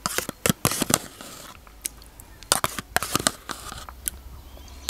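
Close-miked eating sounds: a metal teaspoon clicking and scraping in a plastic yogurt cup, with wet mouth clicks as the yogurt is eaten. The clicks come in small clusters, one near the start and another about two and a half seconds in.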